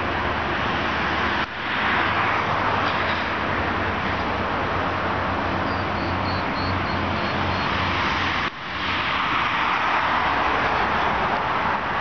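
Steady road-traffic noise from motor vehicles, with a low engine hum under it. The sound cuts out briefly twice, about a second and a half in and again after eight seconds, then comes straight back.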